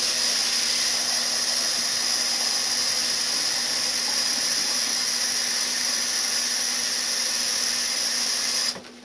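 Kitchen faucet running steadily at full flow, filling a measuring cup with about four cups of water. It is shut off abruptly near the end.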